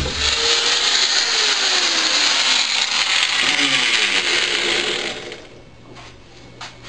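Electric drill spinning a small engine's flywheel over to crank it on HHO gas: a loud whirr with a falling tone for about five seconds, then it stops.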